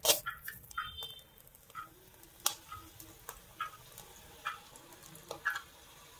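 Hot oil sizzling as strands of gram-flour omapodi dough are pressed into it, with irregular sharp crackles and pops about once or twice a second. The loudest pop comes right at the start.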